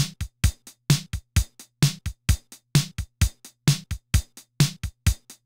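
Roland CR-1000 Digital Drummer, a 1986 drum machine, playing its preset Rock 1 rhythm at a tempo of 130: a steady, evenly spaced beat of electronic drum hits with the bass drum sounding about twice a second.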